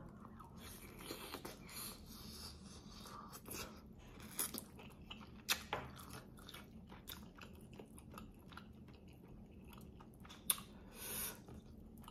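A person chewing and biting pieces of fried chicken close to the microphone, with soft wet mouth sounds and a few louder smacks and crunches, the loudest about halfway through and near the end.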